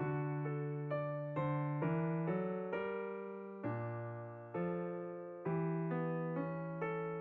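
Slow, gentle piano music: single notes and soft chords struck about every half second to a second, each fading away before the next.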